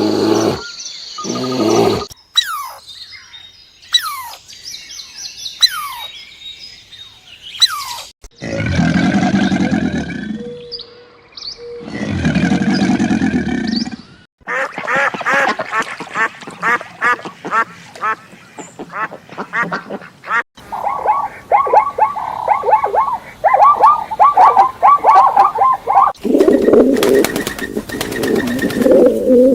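Animal and bird calls in short clips cut one after another. Quick chirping glides come first, then two long low calls, then a long run of rapid repeated calls, and a lower call near the end.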